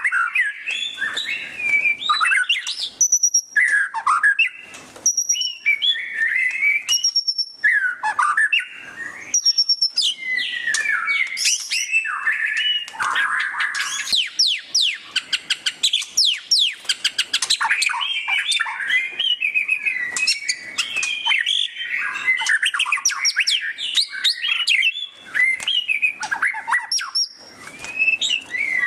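White-rumped shama (murai batu) singing a loud, fast, varied 'ngeriwik' song: rapid chattering twitters mixed with clear high whistles, and a quick run of down-slurred notes in the middle, with barely a pause.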